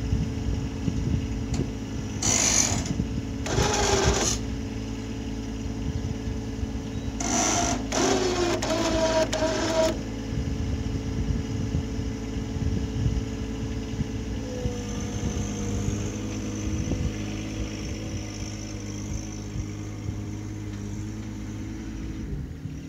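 Compact loader tractor's engine running steadily under load, with three loud grating bursts in the first ten seconds as the steel grain elevator is lifted. The engine note changes about two-thirds of the way through and stops near the end.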